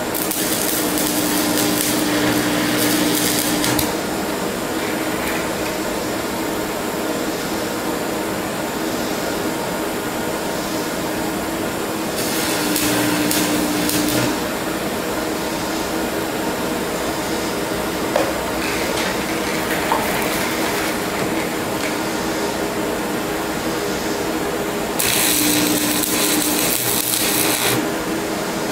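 Stick welder putting tack welds on a cracked cast iron exhaust manifold with nickel rod: three bursts of crackling arc, each a few seconds long with a steady hum, near the start, in the middle and near the end. Underneath runs the steady rushing of two propane torches preheating the cast iron.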